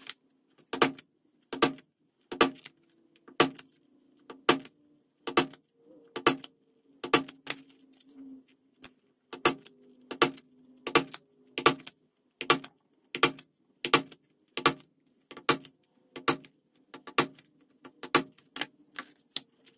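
A mallet striking a metal leather punch, making a sharp tap about every 0.8 seconds, punching stitch holes in vegetable-tanned leather.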